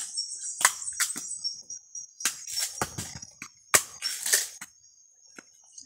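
Cacao pods being split open by hand with a machete: irregular sharp knocks and cracks, sometimes two or three in quick succession, with a steady high-pitched whine under most of it.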